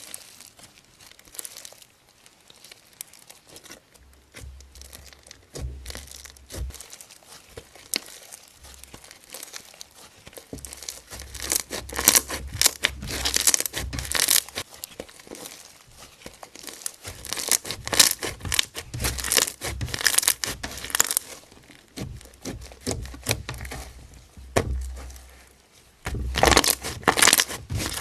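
Slime being squeezed and pressed by hand, giving dense crackling and popping clicks. It starts sparse and comes in busier, louder bursts in the second half.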